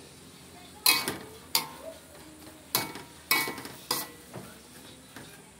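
Metal spatula knocking and scraping against an aluminium wok while stirring pounded cassava leaves: five sharp clanks at uneven intervals.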